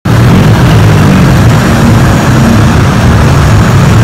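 Tuk-tuk (auto-rickshaw) engine running loud and close as the three-wheeler pulls away.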